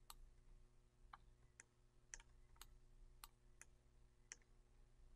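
Faint computer mouse clicks, about eight of them at irregular intervals, over a faint steady hum.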